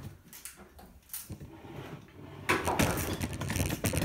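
Clicks and rattles of metal doorknob hardware being handled: a single click about a second in, then a busy run of clicking and rattling from about halfway.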